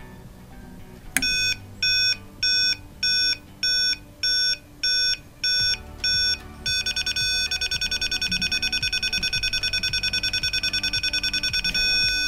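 AXIS Q3536-LVE/Q3538-LVE dome camera's leveling-assistant beeper: a high electronic beep repeating about every 0.6 s, which turns to rapid beeping about seven seconds in as the camera head is tilted. Near the end it becomes one continuous tone, the signal that the camera is level.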